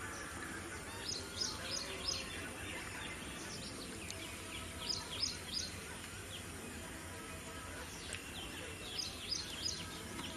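A flock of birds at a pond calling over steady background noise. Three times a bird gives a quick run of three or four sharp, high notes.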